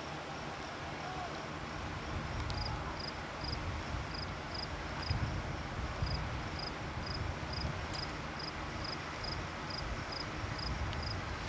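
An insect chirping in short, high pips about three times a second, with a gap about five seconds in, over a low steady rumble.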